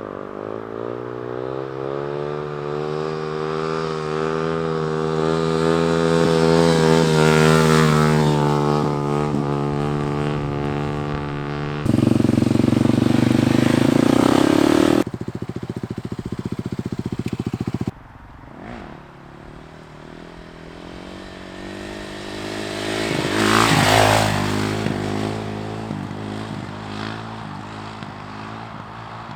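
Dirt bike engines in several cut-together clips. An engine holds a steady note for about twelve seconds, then two abrupt louder stretches follow, then a bike is heard getting louder and fading away about 24 seconds in.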